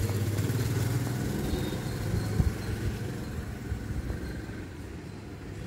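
A motor vehicle's engine running with a steady low hum, slowly growing fainter.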